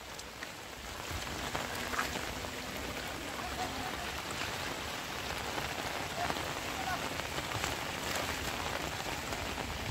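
Steady rain falling on muddy ground and puddles of rainwater, with scattered drop ticks.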